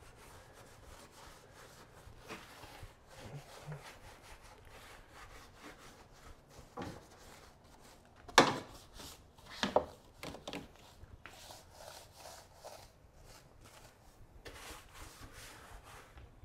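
Soft boar's hair brush scrubbing a foamed-up engine bay, its bristles rubbing in repeated strokes, with a few sharper, louder strokes a little past halfway.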